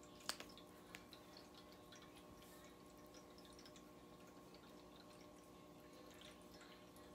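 Near silence: room tone with a steady faint electrical hum, broken by one sharp click about a third of a second in and a few fainter ticks after.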